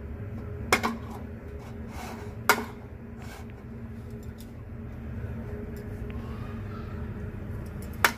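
A metal spoon clinking a few times against a ceramic bowl while raw chicken is coated in marinade, with soft wet scraping in between, over a steady low hum.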